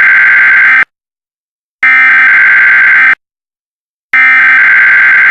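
Emergency Alert System SAME header: three bursts of digital data tones, each a little over a second long, with about a second of silence between them. These encode the alert's event and location codes so that broadcast receivers pick up the tornado emergency.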